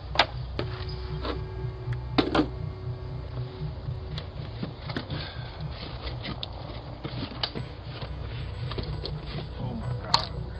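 Scattered sharp knocks and cracks as cardboard packages frozen to an icy porch are pried loose and handled, over a steady low rumble.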